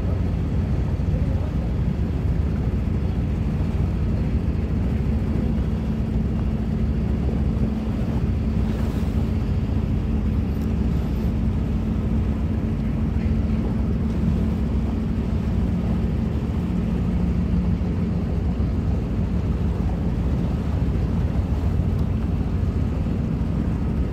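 Boat engine running steadily under way, a constant low drone with a steady hum.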